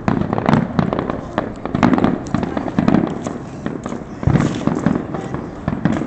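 Many fireworks going off at once: dense crackling and popping, with several deeper booms about a second or so apart.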